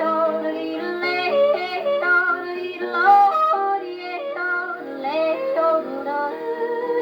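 A woman yodelling over guitar accompaniment, her voice leaping quickly between high and low notes, played from a 78 rpm record on an HMV 156 wind-up gramophone, whose sound stops short of the highest treble.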